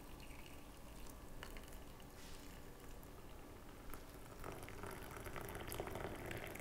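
Hot water poured into a glass mug, a faint liquid pour that grows louder about two thirds of the way through, with a couple of small clicks.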